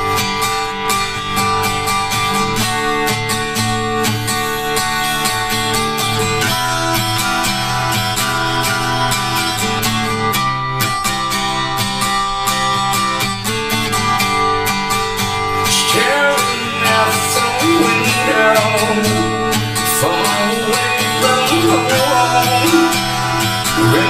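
Opening of a pop ballad, led by guitar over a steady beat, with a voice starting to sing about two-thirds of the way in.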